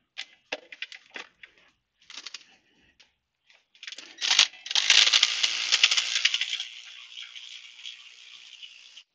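A few light metallic clicks, then a cordless impact driver hammering loudly on the footrest mounting bolt about four seconds in. After a couple of seconds it eases into a quieter, steady free spin as the bolt breaks loose and winds out, stopping near the end.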